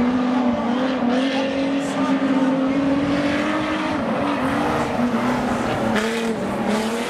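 Several speedway stockcar engines running hard around a dirt track, their notes overlapping and wavering up and down in pitch as the cars accelerate and lift off.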